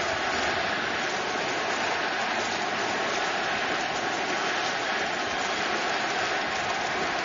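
Large ballpark crowd: a steady din of many voices at once, without a clear rhythm.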